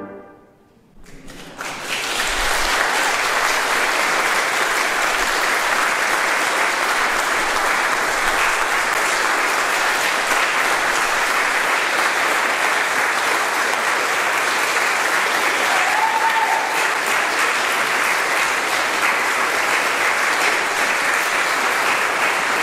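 Audience applauding steadily, starting about two seconds in, after the ring of the brass quintet's final chord fades away.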